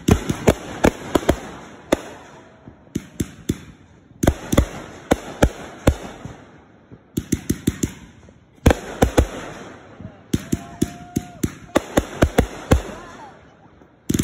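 Consumer fireworks going off: shots launching and bursting in rapid strings of sharp bangs, in about six volleys separated by brief lulls.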